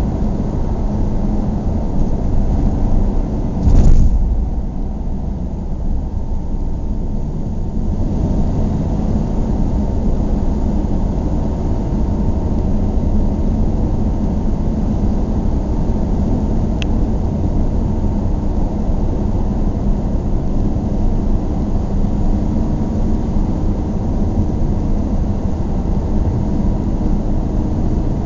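Steady road and engine noise of a car driving along a street. About four seconds in there is a short loud thump, the loudest moment, and after it the sound is duller for a few seconds.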